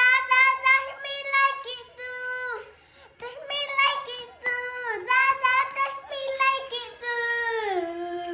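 A young boy singing a melody in a high voice, with held notes, a short break about three seconds in, and a sliding drop in pitch into a long held lower note near the end.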